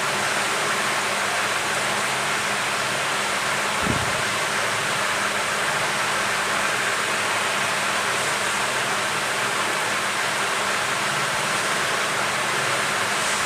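Steady whooshing air noise with no change in level, with one brief low knock about four seconds in.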